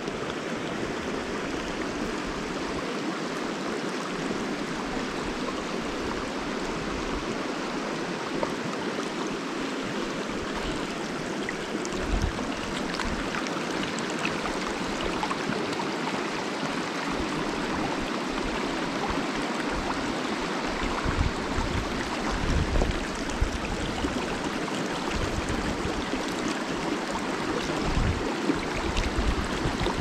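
A river rushing and splashing over rocks, a steady noise of running water, with occasional low bumps more frequent near the end.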